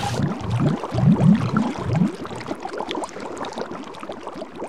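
Water churning and bubbling, with deep rising gurgles in the first two seconds, then fading to a softer fizz.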